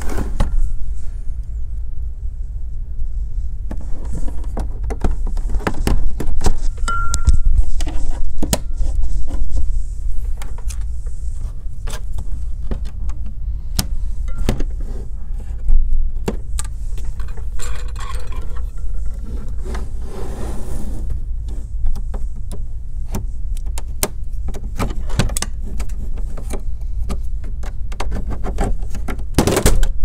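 Plastic clips of an Asus V241E all-in-one's housing clicking and snapping as the LCD panel is pried away from the white plastic back cover, with scraping and handling noise. The clicks come irregularly and bunch up near the end.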